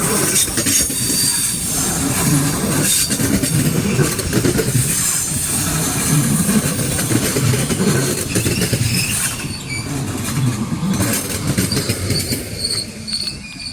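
ICE 4 high-speed train pulling slowly into the station, its wheels squealing in several high-pitched tones over a low rumble, with scattered clacks. It grows quieter over the last few seconds as the train slows.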